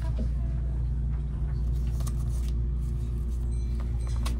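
Steady low rumble of a train car heard from inside the passenger cabin, with a faint hum over it. A few light clicks and rustles come from handling a boxed lunch's wrapping and plastic lid.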